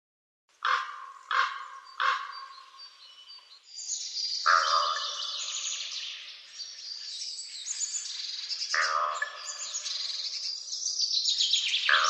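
Crow cawing: three quick caws in a row, then single caws every few seconds over a dense background of small birds chirping.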